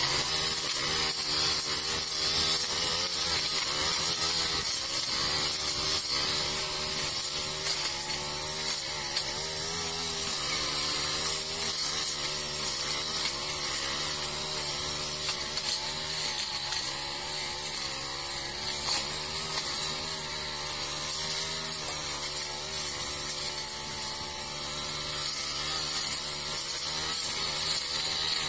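Honda GX four-stroke backpack brush cutter running hard at high speed, its engine note wavering up and down under load as the spinning nylon line cuts through dense weeds and brush.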